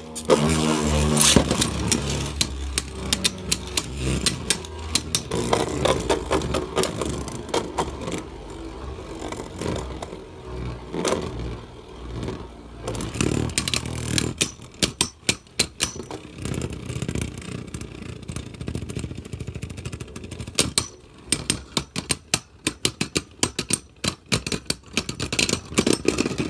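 Two Beyblade Burst spinning tops whirring and grinding against each other and the plastic stadium floor, with a falling whine about a second in. Through the last few seconds, rapid sharp clicks of the tops clashing come thick and fast.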